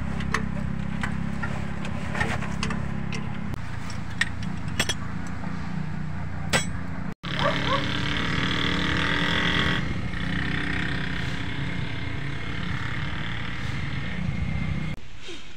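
Steady low mechanical rumble, with scattered sharp metallic clinks of hand tools on the transmission and car underside during the first half.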